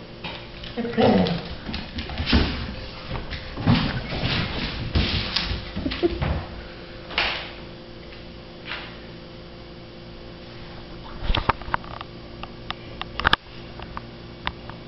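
A dog whining briefly about a second in, then scattered sharp clicks and knocks as dogs move about at a wire crate on a hardwood floor, with a quick run of sharp clicks near the end.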